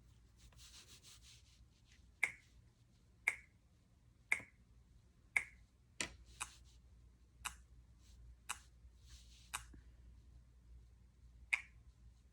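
Finger snaps, about one a second, ten in all, with a short pause near the end; a faint brushing hiss comes between some of them.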